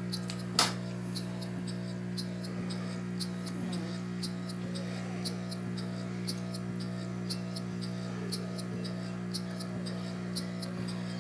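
A small piston-valve model steam engine runs on a few ounces of air pressure from an aquarium aerator pump, giving light, regular clicks about three times a second. A steady low electric hum from the pump runs under them, and one louder click comes about half a second in.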